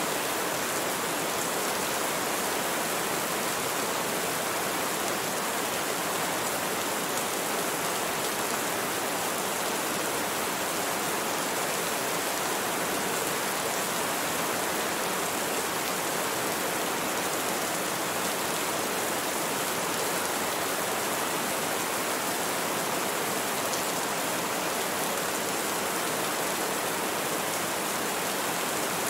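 Steady rain falling, an even, unbroken hiss with no thunder.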